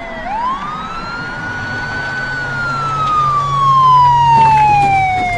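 Police car siren wailing: the pitch sweeps quickly up about a third of a second in, then falls slowly over the next five seconds.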